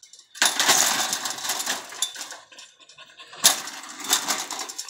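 Chain-link fence rattling and jangling as an American Staffordshire terrier jumps up against it: a long stretch of rattling starting about half a second in, then a sharp second bout about three and a half seconds in.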